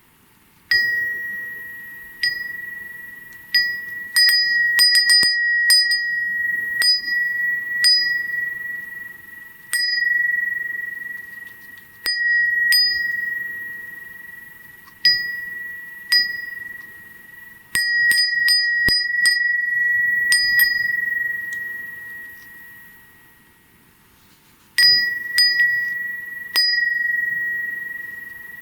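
Crystal-glass fūrin (Japanese wind chime) rung by its glass clapper at irregular intervals. Each ding rings clear on one high, steady note and fades slowly, with quick flurries of strikes, and it dies almost away once before ringing again.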